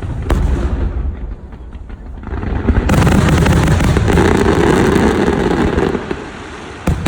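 Aerial fireworks going off: a sharp bang just after the start, then a long loud spell of dense crackling from about two and a half seconds in until about six seconds, and another sharp bang near the end.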